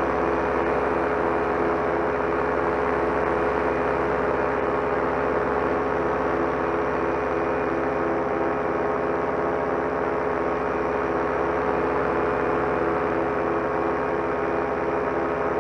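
Solo 210 single-cylinder two-stroke paramotor engine and propeller running steadily in cruise flight, a constant drone with a regular pulsing beat in it.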